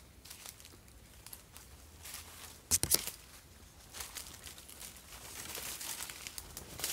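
Footsteps crunching through dry leaf litter and brushing through undergrowth, an uneven crackling with a louder cluster of crackles about three seconds in.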